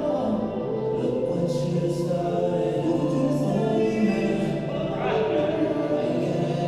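Music with a chorus of sung voices holding long notes.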